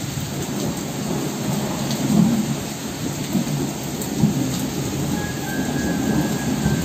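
Rain falling steadily with thunder rumbling throughout, swelling about two seconds in and again about four seconds in. Near the end, faint steady musical tones come in over the storm.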